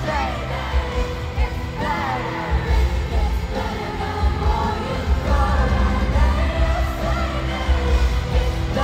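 Live pop music in an arena, recorded on a phone from the audience: a voice singing a melody over a band with a heavy, booming bass.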